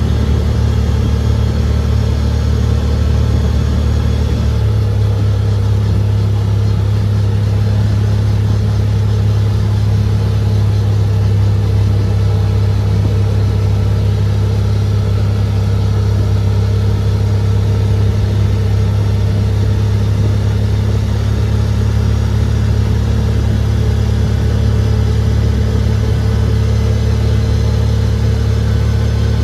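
CFMoto ZForce 950 side-by-side's V-twin engine running steadily while the machine drives along, heard from inside the cab. The engine note changes about four and a half seconds in.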